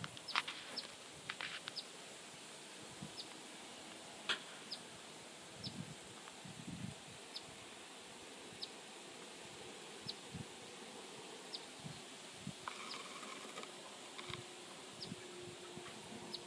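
Bird chicks giving short, thin, high peeps, faint, about once a second and a little irregular, with a few soft rustles and thuds. A buzz comes in about two thirds of the way through.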